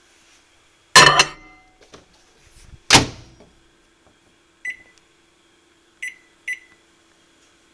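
Microwave oven: two loud clunks, about a second and three seconds in, as the door is opened and shut, then three short high beeps as its keypad buttons are pressed, over a faint steady hum.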